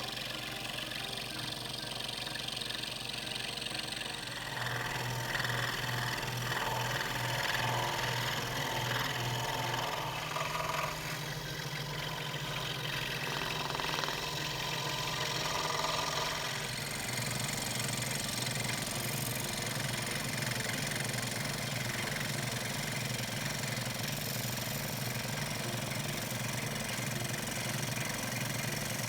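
Electric scroll saw running with its blade chattering up and down as it cuts wood, the note and rhythm shifting a couple of times as the cut goes on.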